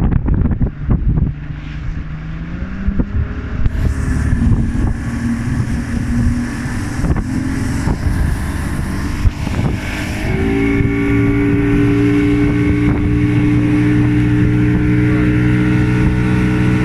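Boat engine running with wind buffeting the microphone; the engine note rises about two seconds in and again about ten seconds in, then holds steady at higher revs.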